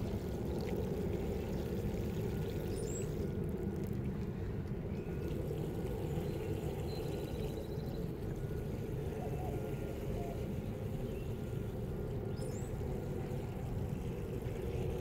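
Water pouring steadily from a plastic watering can onto soil and straw mulch, soaking newly transplanted seedlings.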